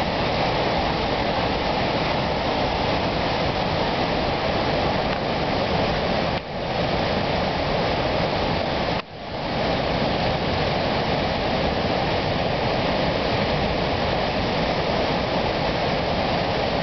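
Steady rush of the Mohawk River's floodwater during ice breakup, a constant roar of moving water broken by two brief dips.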